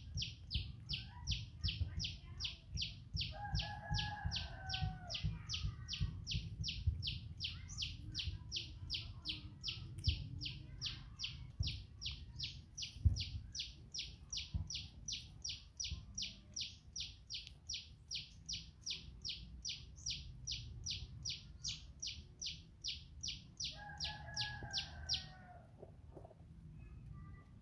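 A high, dry chirp repeating steadily about three times a second, stopping about 25 seconds in, with a short two-tone call twice, near the start and near the end, over a low rumble.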